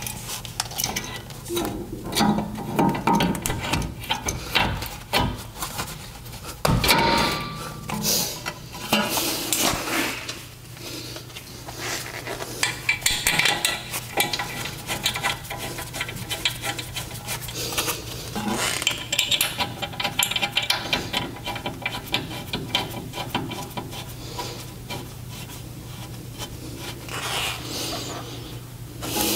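Irregular metallic clinking and clattering of brake parts being handled as a caliper with new pads is fitted over a drilled and slotted brake rotor, with a louder knock about seven seconds in.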